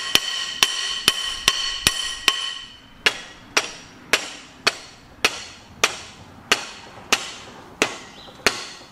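Hammer striking steel in a steady rhythm, tapping a part of a Bandit 1890XP wood chipper's twin-disc clutch back into place on its shaft. For the first two or three seconds the blows come quickly and the metal rings between them. After that they are slightly slower, shorter and duller, about two a second.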